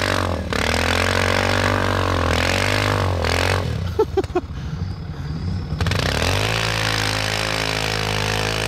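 ATV engine revving hard as the quad churns through deep snow with its wheels spinning, struggling to push through a drift. The engine sags for a couple of seconds midway, then picks back up and runs steadily.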